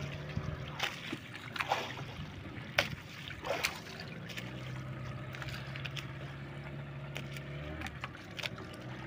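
A fishing boat's engine running at a steady low pitch while towing a boat whose own engine has stalled; the hum fades and returns. Water splashing and sharp knocks against the wooden hulls.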